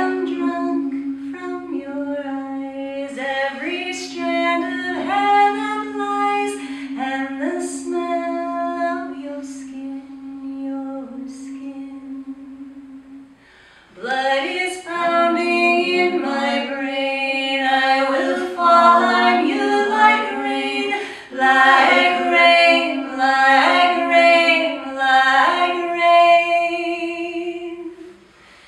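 Three women's voices singing in close a cappella harmony, one holding a long low steady note beneath the moving upper voices. After a brief pause about halfway through, all three come back in together and sing on in fuller harmony.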